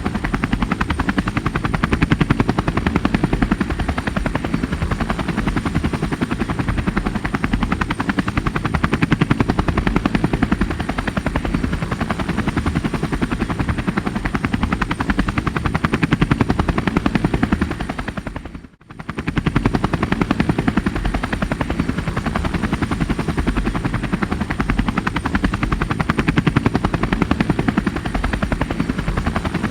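Helicopter running steadily, its rotor making a fast, even chop with a thin high whine above it. The sound dips sharply for a moment about two-thirds of the way through, then comes straight back.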